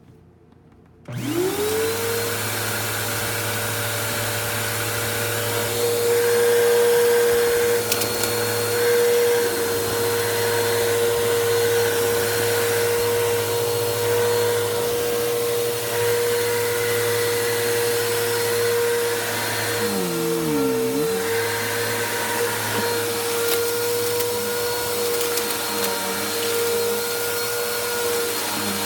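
Bissell vacuum cleaner switched on about a second in, its motor spinning up with a rising whine and then running with a steady hum and rush of air. About twenty seconds in the motor's pitch dips briefly, as under load, then comes back up.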